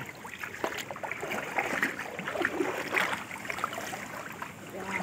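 Shallow muddy water splashing and sloshing in uneven bursts as a bamboo polo fish trap is pushed down into it and a hand gropes around inside the trap for fish.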